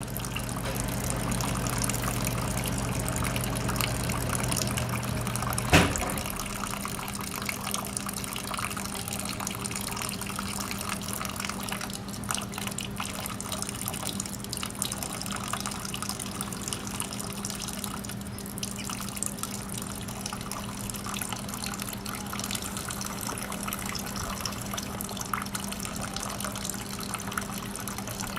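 Water trickling and splashing steadily over a low steady hum, with one sharp click about six seconds in.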